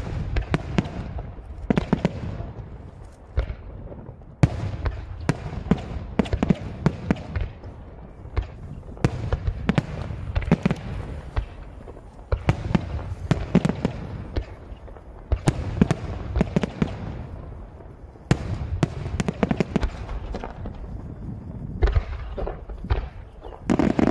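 Aerial firework shells launching and bursting in rapid succession: a dense run of sharp bangs and deeper booms, with short lulls between volleys.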